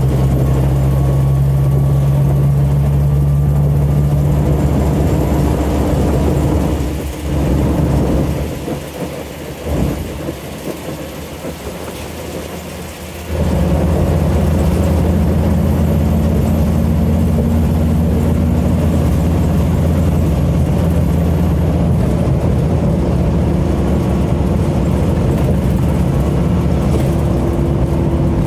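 Scania DC09 9.0-litre five-cylinder diesel engine of a Scania OmniCity bus, heard from inside the passenger saloon, running under load. It drops to a quieter, uneven level for about six seconds, then comes back sharply about 13 seconds in and pulls steadily, its pitch slowly rising.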